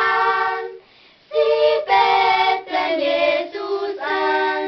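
A small group of children singing a Sternsinger (Epiphany star-singer) carol: a held note, a breath break about a second in, then a phrase of several long held notes.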